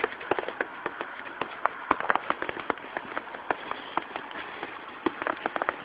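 Footsteps crunching through fresh snow, about two inches deep, heard as a run of irregular sharp crackles.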